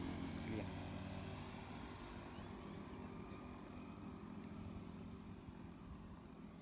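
Engine of a motor vehicle on the road, a steady low hum that is loudest at the start and slowly fades as it moves away.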